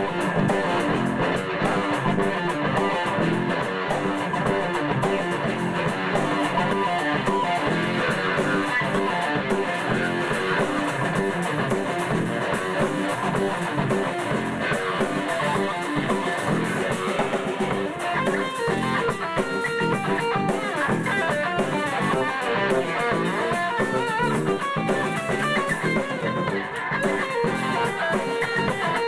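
Live instrumental rock trio playing: drum kit, electric bass and electric guitar together, steady and loud throughout.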